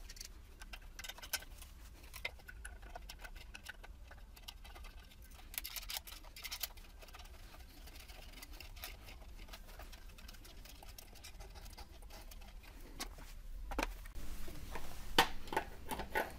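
Small clicks and taps of hands fitting a metal adapter ring and threading a nut onto a headlight projector in a plastic headlight housing, over a faint low hum. A few louder clicks come near the end as pliers are brought to the nut.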